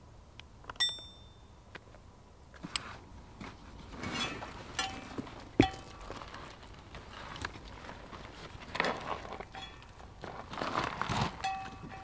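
Camping gear being handled: rustling of a backpack's fabric and straps, with scattered knocks and small metallic clinks. About a second in comes one bright, briefly ringing clink.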